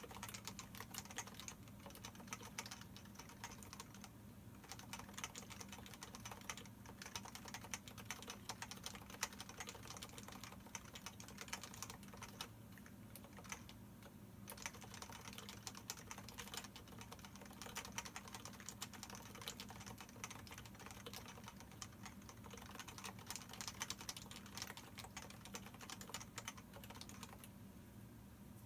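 Fast continuous typing on a Leopold FC660C Topre electrostatic capacitive keyboard with 45 g rubber domes, PBT dye-sublimated keycaps, unlubricated stock sliders and Krytox 205-lubricated stabilizers. The keystrokes run in a dense stream with a few short pauses, around four seconds in, around thirteen seconds in, and near the end.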